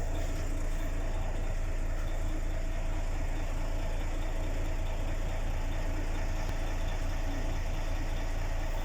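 Freshly overhauled Mercedes-Benz Actros 2040 diesel engine idling steadily, with a constant low hum and a steady mid-pitched tone over it.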